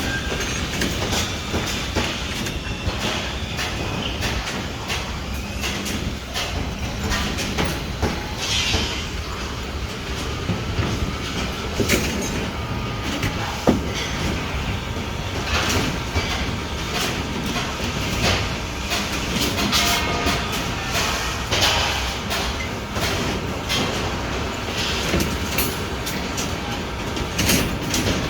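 Rebar being handled on a construction site: frequent metal clinks and knocks over a steady low rumble.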